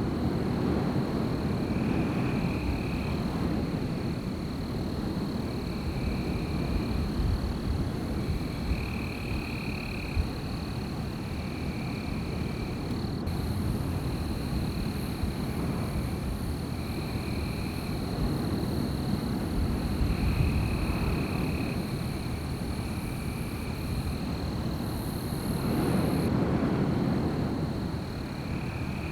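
Wind blowing through trees in gusts, swelling near the end, with a steady thin high tone and short high calls about a second long repeating every couple of seconds.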